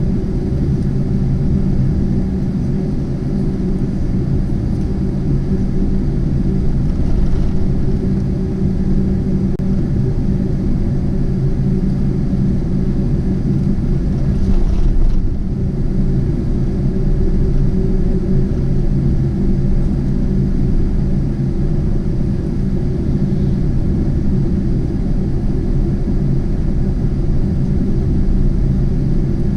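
Steady low rumbling drone with a constant low hum, as from a running vehicle or aircraft machinery, with a brief swell just before halfway.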